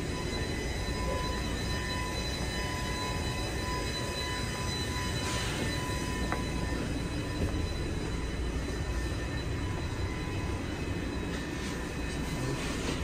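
Toronto subway train standing at the platform with its doors open: a steady low rumble of the train's equipment with constant high-pitched whines over it, heard first from the platform and then from inside the car.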